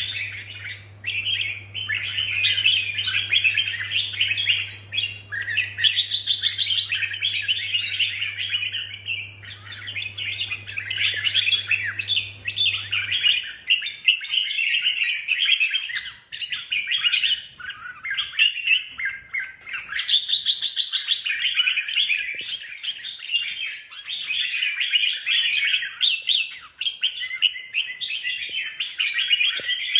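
Caged red-whiskered bulbuls singing without a break, a rapid run of chirping phrases.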